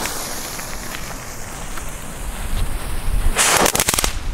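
A Lesli Black Devils youth firework, freshly lit on the ground, hisses for about three seconds and then goes off in a quick burst of sharp crackling pops near the end.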